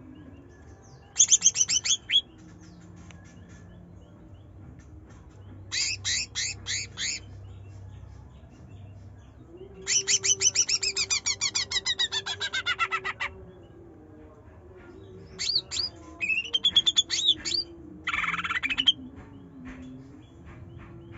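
Greater green leafbird (cucak ijo) singing in loud bursts of rapid trills and sharp chattering notes. There are about five bursts with short pauses between them, and the longest, around the middle, sweeps down in pitch.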